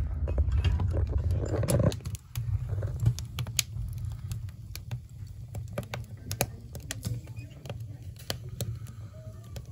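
Wood-burning stove drafting with a low rumble that drops off about two seconds in as the firebox door is opened. Then the burning split logs crackle and pop, sharp irregular pops over a softer low rumble.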